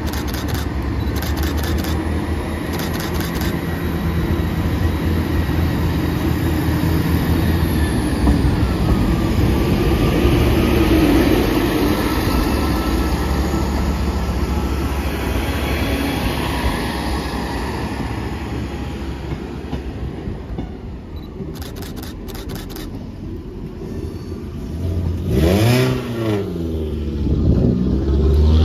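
Diesel multiple unit's engines running steadily, then growing louder as the train moves off and passes over the level crossing, its wheels rumbling on the rails. Near the end, engines rise and fall in pitch as they rev.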